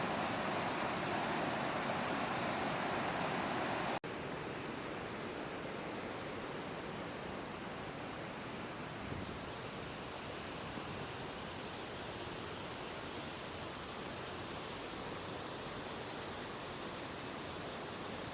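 Steady rushing noise, cut off sharply about four seconds in, followed by the even rush of white water in a river below a steep drop.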